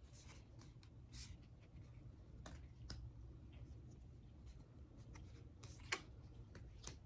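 Faint papery rustles and soft slides of oracle cards being handled and flipped, with a sharper tap about six seconds in, over a low room hum.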